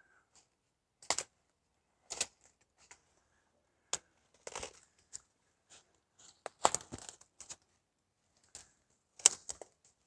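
Dry leaves, pine needles and twigs crunching and rustling in irregular steps as someone pushes through dry brush, with a single sharp crack about four seconds in.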